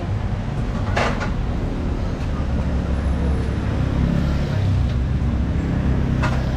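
A motorcycle riding in traffic: a steady, low engine-and-wind rumble, with a brief hiss about a second in and two more near the end.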